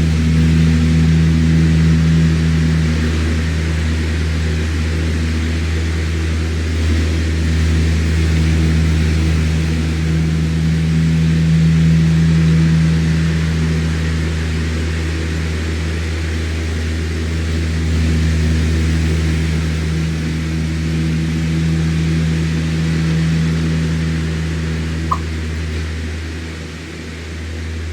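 Electric fan running steadily: a low motor hum under an even rush of air, with one brief click near the end.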